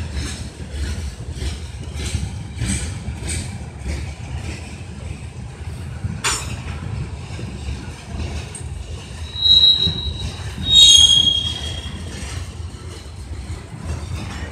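Freight train of covered hopper cars rolling slowly past: a low rumble with regular clacks from the wheels, a sharp clank about six seconds in, and high wheel squeals twice past the middle, the second the loudest.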